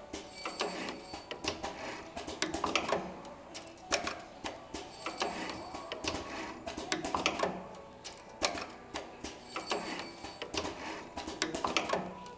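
Candle wick assembly machine running: quick mechanical clicks and clacks that come in louder clusters about every one and a half seconds, with a few short hisses.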